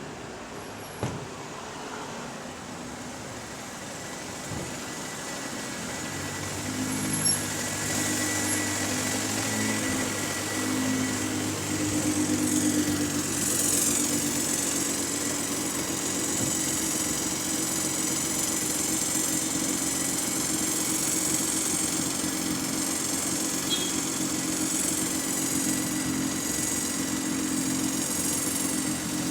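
Bus engine running steadily, its hum growing a little louder about seven seconds in. From about halfway through, an odd high-pitched whine wavers above it.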